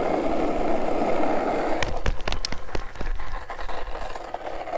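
Steady rushing noise of wind and rolling movement picked up by a camera on a husky's harness. About two seconds in it breaks into scattered sharp clicks and knocks, then settles to a softer rush.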